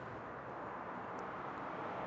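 Faint, steady rushing noise, like room tone or air handling, slowly growing louder, with no distinct strokes.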